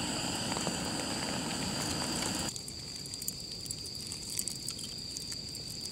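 Steady hiss of a gas camping stove burner heating a pot of rice, broken off by a cut about two and a half seconds in. After the cut it is quieter, with light crackling and pattering from freshly lit charcoal in a small grill and from rain.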